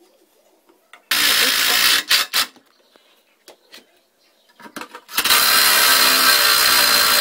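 Power drill driving screws into the treadmill frame: a run of about a second, two short blips, then a longer run of about two seconds with a steady high whine.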